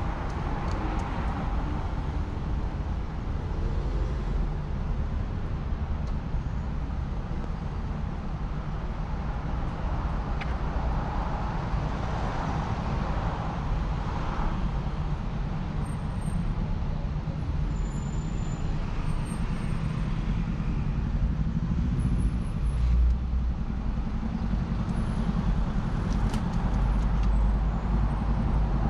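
Road traffic on a city street: a steady low engine rumble, with the tyre and engine noise of cars swelling as they pass every several seconds.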